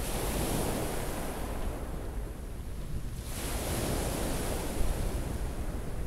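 Small sea waves breaking and washing up a shingle beach, in two surges about three seconds apart, with wind rumbling on the microphone.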